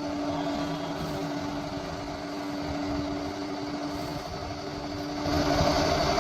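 Bulldozer engine running with a steady hum, growing louder about five seconds in as the machine works harder or comes closer.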